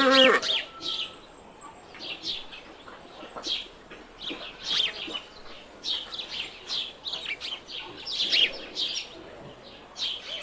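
Birds chirping over and over in short, high notes, with a brief, louder pitched call right at the start.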